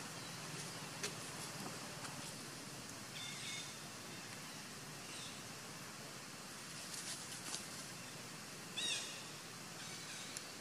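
Outdoor ambience: a steady faint hiss with a few light clicks, and two short high chirping animal calls, about three seconds in and again near the end.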